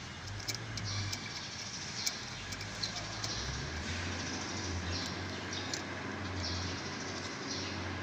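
A steady low hum, with short high chirps coming and going and a few light clicks.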